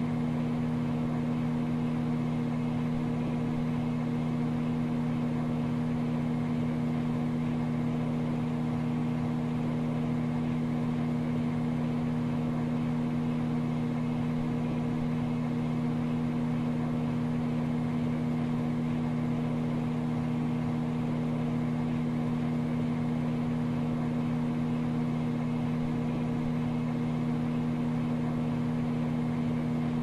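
Microwave oven running: a steady hum that does not change.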